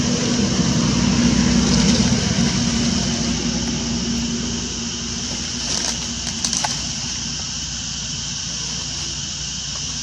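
A motor vehicle's engine running on the road nearby, loudest in the first two seconds and then fading away, over a steady high hiss. Two short clicks sound about six seconds in.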